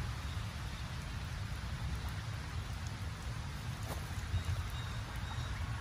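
Steady hiss of light rain falling on wet pavement and puddles, over a low rumble. A brief flutter of a Canada goose's wings comes about four seconds in.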